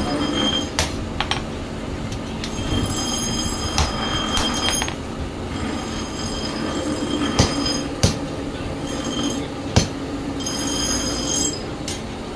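Hand hammer striking a red-hot steel bolo blank on a cylindrical steel post anvil during forging. The sharp strikes come singly and irregularly, the loudest a little past halfway. High metallic ringing tones hold for a second or two between them, over a steady background noise.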